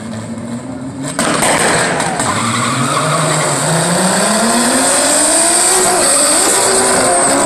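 Two drag cars launching from the line, one of them a turbocharged VR6 Volkswagen Jetta. The engines hold revs, then about a second in the sound jumps sharply louder as they launch. The engine pitch climbs steadily through the run, dips at a gear change near six seconds, then climbs again.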